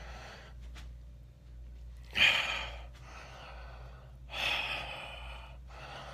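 A man's heavy breaths, three long puffs: the first a sharp, loud exhale about two seconds in, the other two longer and softer. They come from the strain of walking unaided without his walker.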